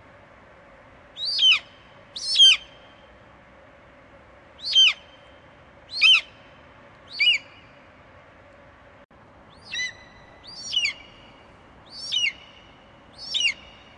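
Bald eagle calling: nine short, high-pitched calls that each drop in pitch, coming roughly one a second with a longer pause in the middle, over a steady faint hiss.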